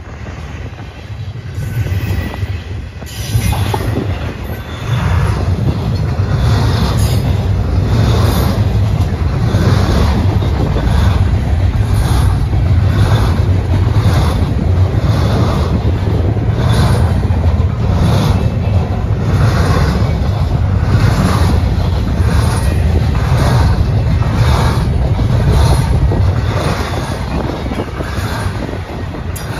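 Double-stack intermodal freight cars rolling past: a steady heavy rumble of steel wheels on rail, with sharp wheel clacks recurring about once a second. The rumble grows louder about five seconds in and then holds steady.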